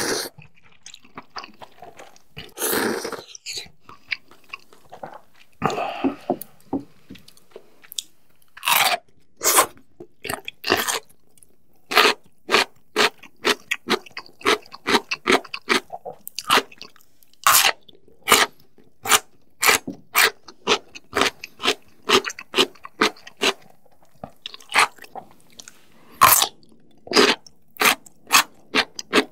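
Close-miked eating: a couple of slurps of noodles in the first few seconds, then crisp radish kimchi bitten and chewed with loud, sharp crunches, about two a second, from about eight seconds in.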